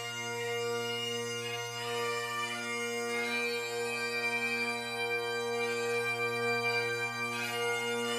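Bagpipes playing a slow melody over steady, unbroken low drones.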